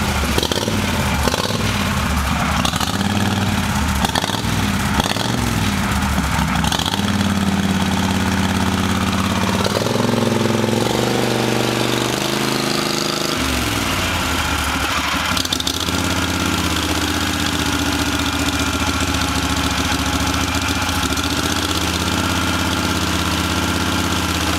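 A 24 hp Honda V-twin engine, converted into an EZGO ST 480 golf cart, running through a custom exhaust on its first run. It idles steadily, speeds up about ten seconds in, and drops back to idle about three seconds later.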